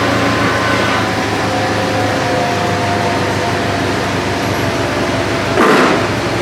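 Steady mechanical hum, with one short loud burst of noise about five and a half seconds in.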